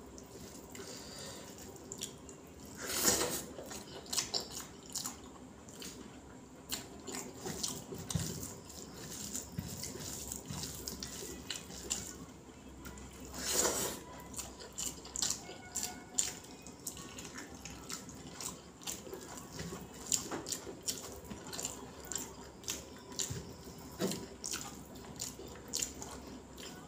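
Wet eating sounds from hand-eating rice with sambar: fingers squishing and mixing the wet rice on a banana leaf, and lips smacking while chewing, a steady stream of short wet clicks with two louder bursts, one about three seconds in and one about halfway through.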